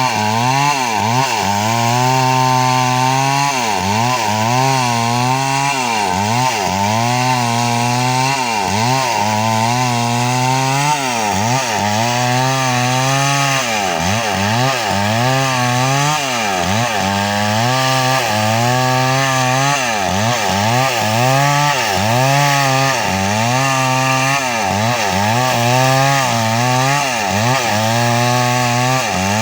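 Chainsaw running at high speed while cutting wood, its engine pitch dipping and recovering every second or so.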